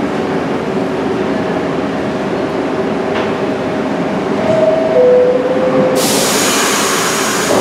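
New York City subway train at the station platform: a steady rumble with a whine that steps down in pitch about five seconds in, then a sudden loud hiss about six seconds in.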